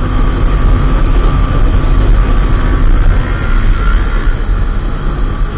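Motorcycle riding at speed, heard from a camera mounted on the bike: the engine running steadily under heavy, continuous wind rumble on the microphone.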